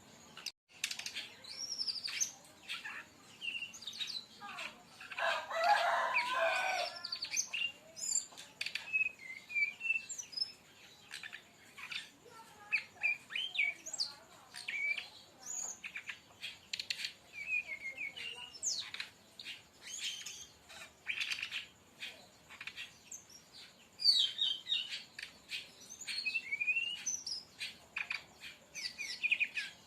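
Brown-chested jungle flycatcher (sikatan rimba dada coklat) singing a rapid, varied song of short chirps, clicks and brief whistled notes, with a dense chattering burst about five seconds in.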